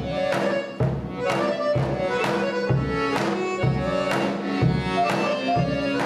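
Instrumental background music: a steady drum beat, about one hit a second, under a melody of held notes.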